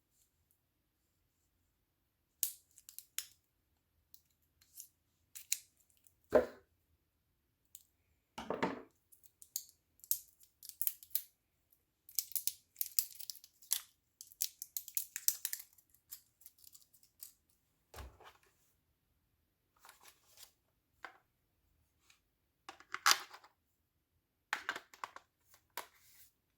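Keyboard packaging being handled, snipped and torn open in irregular bursts of crinkling and tearing, with a couple of duller knocks as parts are set down.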